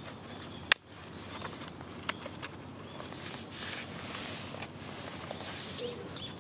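Small wood fire of disposable wooden chopsticks burning in an aluminium can, crackling, with one sharp loud pop a little under a second in and a few smaller pops about two seconds in.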